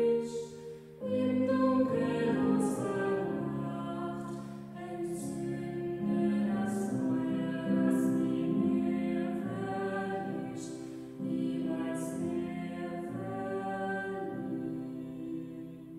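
A woman and a man singing a song together in two voices, with long held notes.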